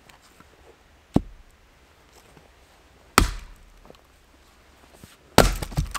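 Firewood being split: three sharp wooden chops about two seconds apart, the last followed by a brief clatter of knocks.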